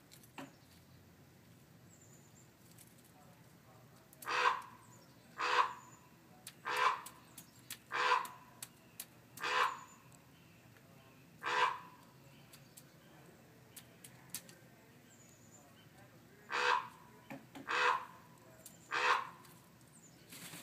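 Magpie calling: nine short calls, six spaced about a second apart, then one more, then after a pause of about five seconds a final run of three.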